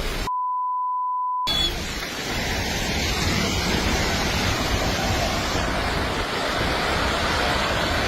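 A single steady censor bleep lasting about a second near the start, then the continuous rushing roar of a landslide, which sounds like a raging river.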